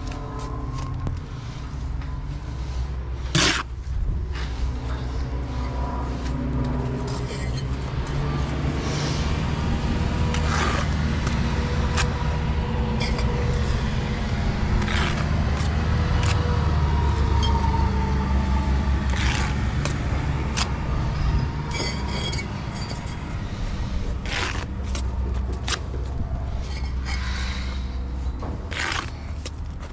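Bricklaying: a steel trowel scraping and spreading mortar, with short sharp taps and knocks as bricks are bedded and tapped down into place. A steady low rumble runs underneath, strongest about halfway through.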